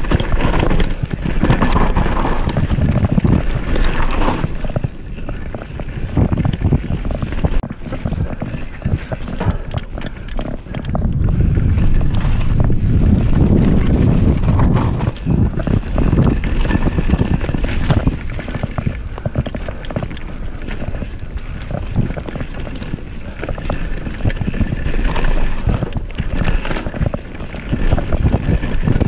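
Mountain bike descending a rough dirt trail at speed: rapid, irregular clatter and knocks from the tyres and frame over roots and ruts, over a low rumble of wind on the camera microphone that swells and dips with speed.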